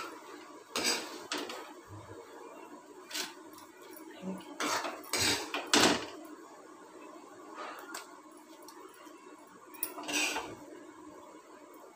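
A metal spoon scraping and clinking against cookware as a thick kalakand mixture is spooned out of the pan into a foil-lined bowl. The clinks come irregularly, loudest a little past the middle.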